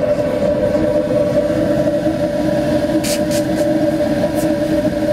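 Steady roar and hum of the flame burner sending hot exhaust through a stainless steel pipe. About three seconds in, a hand spray bottle gives a handful of quick hissing squirts of water onto the hot pipe.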